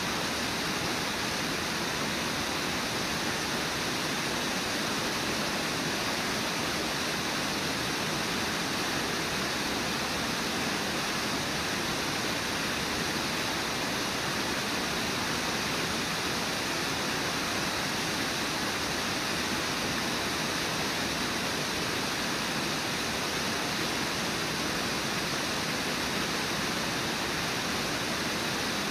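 Steady rush of water pouring over Brooks Falls, a wide river waterfall, unbroken and even throughout.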